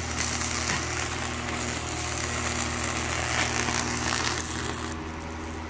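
High-voltage electrical arc crackling and hissing as it burns through wet wood between two nail electrodes, over a steady low electrical hum from the transformer. The crackle stops abruptly about five seconds in, and the hum carries on.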